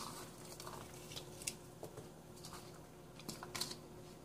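Sliced onions dropped by hand into a wok, making faint soft patters and light clicks, scattered and irregular, over a faint steady hum.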